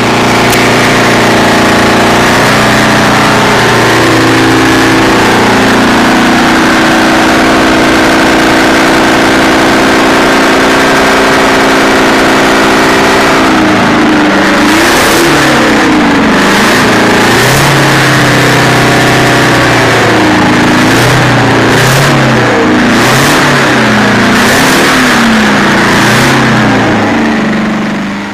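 Detroit Diesel 318 two-stroke V8 of a Ford WT9000 truck running loud and steady at idle, then revved up and down repeatedly from about halfway through.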